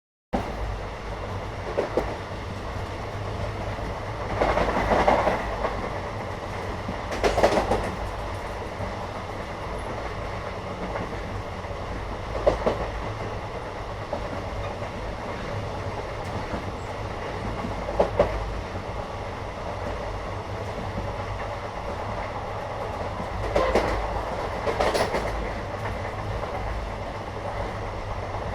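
Moving Indian passenger train heard from inside the carriage: a steady low rumble with louder clanks and rattles every few seconds.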